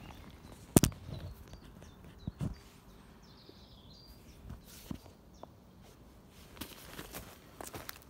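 A phone being handled and set down on bare ground, with a sharp knock about a second in and a few softer knocks and scrapes after it. Near the end, boots crunching footsteps over dry twigs and leaf litter as someone walks up close.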